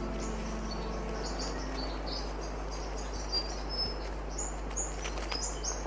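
Forest ambience of many small birds chirping, with short high notes overlapping throughout. Soft music fades out during the first two seconds.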